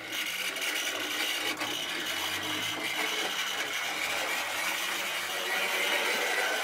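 Airfix Great Western Prairie tank model locomotive running along the track with a steady, very noisy mechanical grinding and whine from its motor and gears, 'like a bag of spanners in a cement mixer'.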